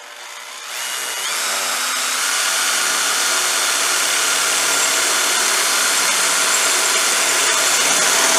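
Cordless drill with a 7 mm bit boring through the steel front wing of a Nissan Navara NP300. The motor speeds up over the first second, then runs steadily under load as the bit cuts.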